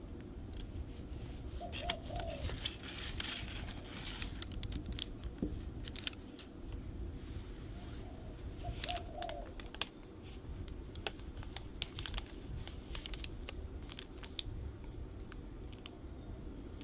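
Knife cutting through a crisp-crusted banana muffin in a paper liner: irregular crackles of the crust and crinkling of the paper, thickest a few seconds in and again from about nine seconds. A dove coos briefly twice in the background.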